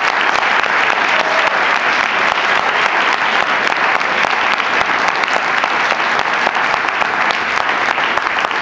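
Audience applauding after a song: dense, steady clapping that holds at one level throughout.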